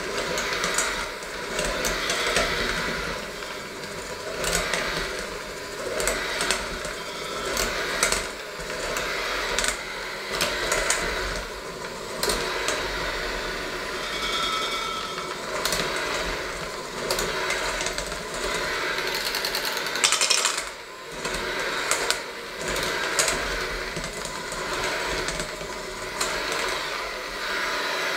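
Electric hand mixer running steadily, its beaters churning thick dough and knocking against a stainless steel bowl. About halfway through, a clearer, higher whine comes briefly to the fore.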